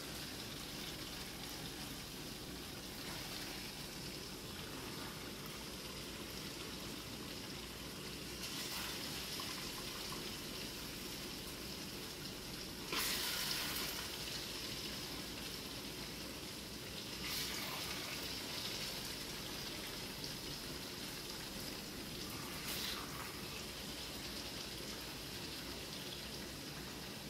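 Chicken curry simmering in a frying pan with a steady crackling bubble, broken a few times by short scrapes of a metal spoon against the pan as chicken pieces are lifted out, the loudest about halfway through.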